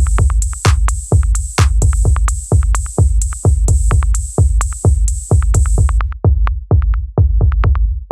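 Electronic background music with a steady drum-machine beat, about two heavy bass hits a second. The high, hissing top layer drops out about six seconds in, and the beat carries on.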